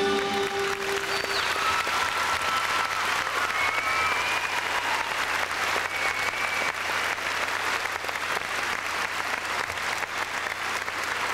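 Arena audience applauding a finished skating routine, a dense steady clapping that starts as the last held note of the music dies away in the first second.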